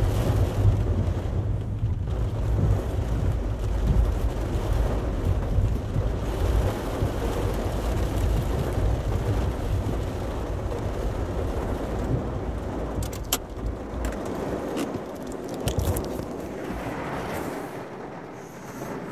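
Heavy rain falling on a car, heard from inside the cabin over the low rumble of the car driving. A few sharp clicks come near the end, and the rumble fades soon after.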